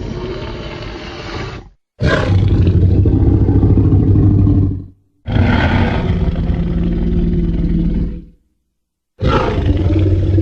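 Monster roar sound effects played one after another: three deep, rough roars of about three seconds each, separated by short silences, with the tail of an earlier roar cutting off near the start.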